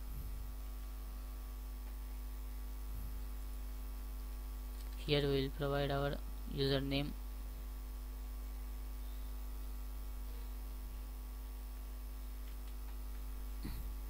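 Steady electrical mains hum with a buzz of many overtones. A man's voice speaks a few short syllables about five seconds in.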